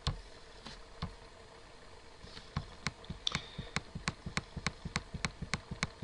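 Computer mouse scroll wheel clicking through its notches in a quick, even run of light clicks, about five a second, starting about halfway through; a single click comes just at the start.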